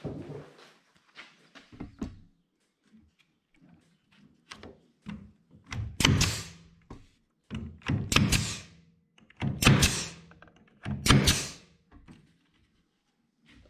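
Cordless nailer firing nails into a plywood edge strip: four sharp shots about a second and a half apart in the second half, with a few light knocks of handling before them.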